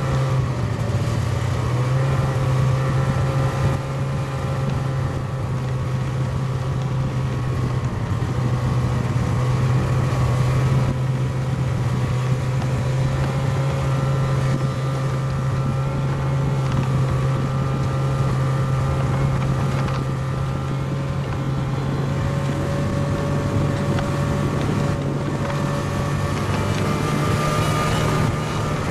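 Snowmobile engine running at a steady cruising speed, heard from aboard the moving sled, with a constant hum and whine at an almost unchanging pitch.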